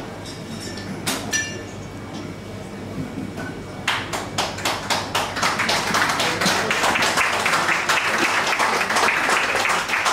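Audience applauding, starting about four seconds in and growing fuller, over a murmur of room chatter; shortly before, a brief clink with a ringing ping.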